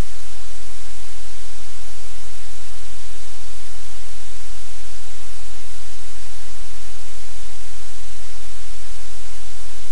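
Loud, unchanging static hiss with a low buzzing hum under it, covering everything else: noise on the live cam's audio feed.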